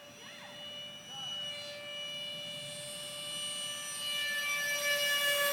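FMS F-16 electric ducted-fan RC jet flying past: the fan gives a steady, high-pitched whine with many overtones that grows louder as the plane approaches. Near the end the pitch starts to drop as it goes by.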